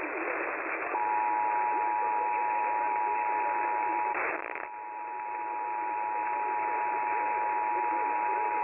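Emergency Alert System two-tone attention signal (853 and 960 Hz together) received over a radio, in steady static hiss. The tone starts about a second in and is broken for half a second by a burst of static about four seconds in.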